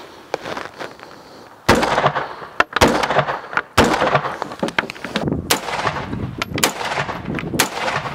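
Three .223 rifle shots from an AR-15-style carbine, about a second apart, fired at near contact range into a soft armor vest on a wooden board. Fainter cracks follow the shots.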